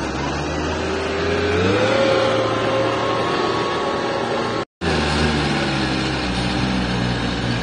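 Quanchai diesel engine of a compact wheel loader running under load as it scoops and carries sand, with a tone that rises about two seconds in and then holds. The sound cuts out for a moment about halfway through.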